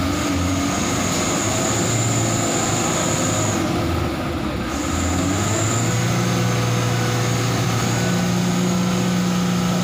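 Mitsubishi Fuso light truck's diesel engine running hard with the truck stuck in deep mud, a steady drone with a high whine above it. The engine note grows stronger and steadier about halfway through.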